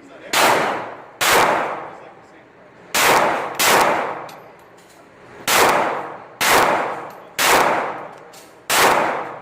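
Eight 9mm pistol shots fired at a steady, unhurried pace, about one a second with a couple of longer pauses, each shot echoing and dying away over about a second. This is a test-fire of a Smith & Wesson Sigma SW9VE fitted with an Apex trigger and spring kit.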